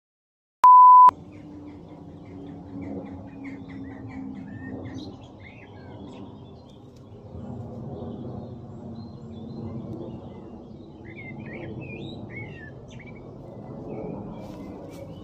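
A short, loud, steady beep about a second in, then small birds chirping over a steady low background rumble.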